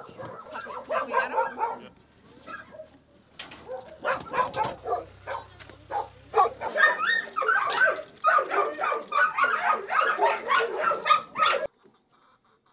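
Many dogs barking at once, a dense overlapping din that cuts off suddenly near the end.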